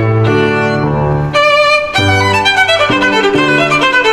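Instrumental background music: a melody line over bass notes, with the notes changing about every half second.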